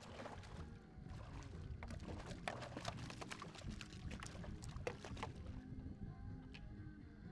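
Water splashing and sloshing along a kayak's hull as it moves, with a low wind rumble on the microphone. Many short, sharp splashy crackles fill the first five seconds or so, then thin out.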